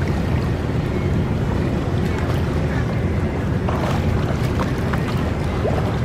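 Steady low rumble of wind buffeting the microphone, over the wash of open water.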